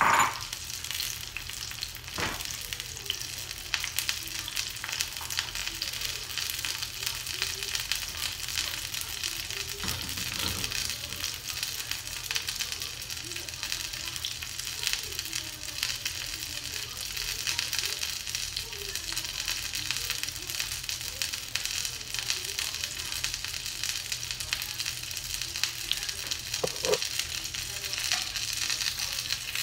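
Lumpia (Filipino spring rolls) sizzling steadily as they fry in oil in a stainless steel skillet. There is a sharp knock at the start, a few scattered clicks, and a metal clack near the end as tongs turn the rolls.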